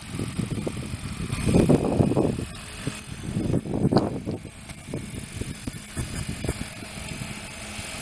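Radio-controlled Align 700 helicopter with a scale Bell 206 body flying, its rotor and drive giving a faint steady hum under a loud, irregular, gusting low rumble.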